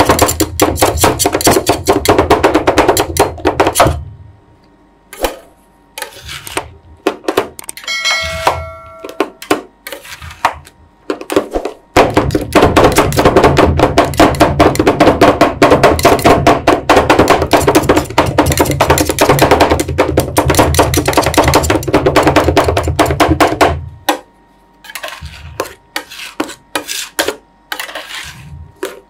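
Two metal spatulas chopping fast on the steel freezing plate of a rolled-ice-cream machine, cutting chocolate pieces into the freezing ice cream base: long runs of rapid sharp clacks, with a few seconds of slower, scattered taps in between and near the end. A brief metallic ring sounds about eight seconds in.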